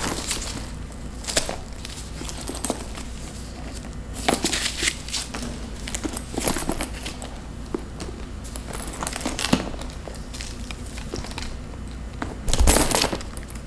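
Handling noises from a crocodile-embossed leather shoulder bag and its straps: scattered short rustles, crinkles and small clicks as a strap is worked onto its clasp. Near the end comes a louder rustle with a low bump as the bag is lifted.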